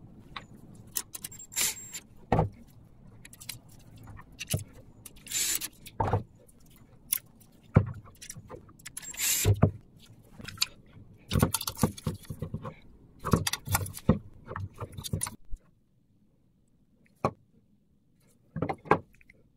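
Metal tools and bicycle crank parts being handled: irregular clinks, knocks and short metallic rattles, several of them louder knocks. They stop about three-quarters of the way through, followed by a few clicks near the end.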